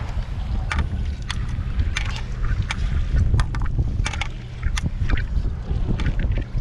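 Wind buffeting the microphone in a steady low rumble, over water lapping against a kayak hull. About a dozen sharp clicks and knocks of gear being handled on the kayak are scattered through it.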